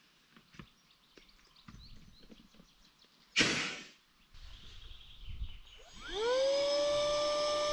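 Light handling knocks and clicks, then a loud brief rush of noise about halfway through. Near the end a small electric motor spins up with a quickly rising whine and settles into a steady hum, as when an electric air pump is switched on to deflate the inflatable kayak.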